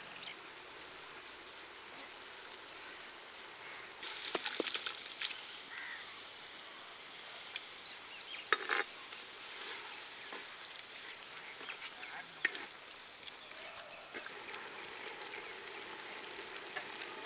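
Country-chicken pieces frying in oil and masala in a clay pot, a steady sizzle, with a few sharp knocks of the stirring spoon.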